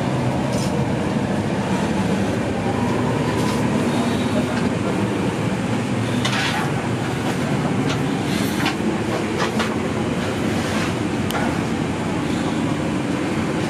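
Steady low hum and rush of an ATR72-500 turboprop's cabin on the ground, with a few short clicks and knocks scattered through it.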